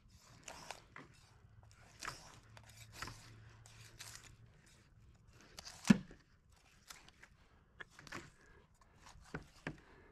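Flexible fillet knife cutting through a sheepshead's rib bones, a quiet run of scattered crunching clicks and crackles, with one louder click about six seconds in.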